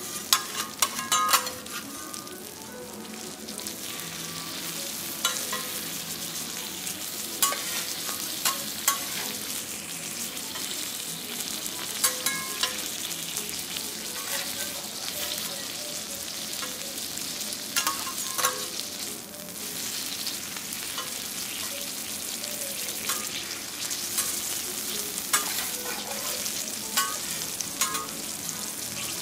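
Food sizzling steadily on a teppanyaki iron griddle, with scattered sharp clicks of metal spatulas against the hot plate.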